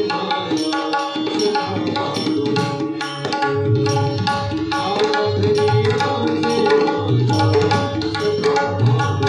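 Instrumental passage of a Marathi abhang: tabla and mridang playing a steady rhythm under a sustained melodic accompaniment, without a voice. Deep bass drum strokes come in strongly about three and a half seconds in.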